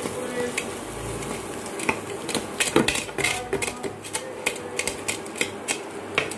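A wooden spatula stirring and scraping onions and ginger-garlic paste around a non-stick kadai, with rapid knocks and clicks against the pan, thickest in the second half, over a light sizzle of frying. The paste is being fried off so that it loses its raw smell.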